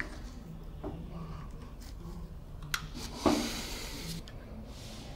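Small metallic clicks and ticks from handling the carbon brushes and brush holder of a gearbox actuator's electric motor, with one louder short scraping rush about three seconds in.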